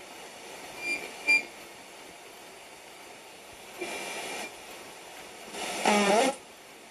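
Bush TR130 radio being tuned between stations: steady static hiss, two short high beeps about a second in, and brief snatches of broadcasts as the dial passes stations, the last, with a voice, around six seconds in.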